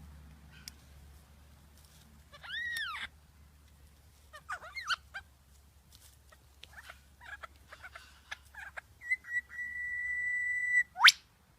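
Bird calling: an arched whistled note, a few quick chirps, then a long steady whistle that ends in a sharp upward sweep.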